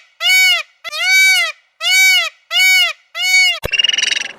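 An animal gives a run of short, loud calls, each rising and then falling in pitch, about one and a half a second. Near the end a click cuts to a fast buzzing rattle.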